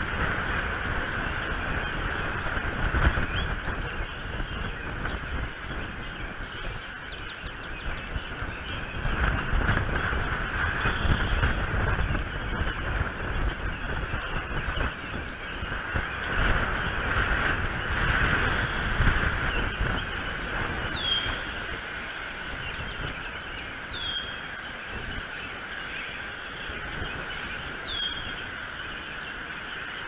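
Wind and rain on an outdoor nest-cam microphone: a steady rushing noise that swells in gusts, with low rumbling buffets. In the second half a bird gives a short, high call three times, about three seconds apart.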